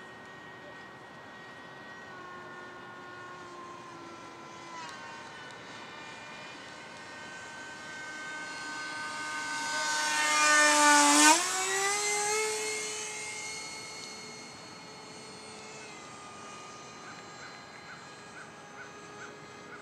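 A radio-controlled F-16 model jet's 70 mm electric ducted fan whining in flight, its pitch stepping slightly with throttle changes in the first few seconds. It grows louder as the jet passes close, drops sharply in pitch as it goes by about 11 seconds in, then fades as it flies away.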